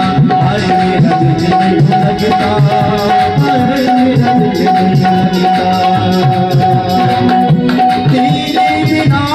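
Bhajan music with no lead vocal: tabla playing a steady rhythm under an electronic keyboard melody.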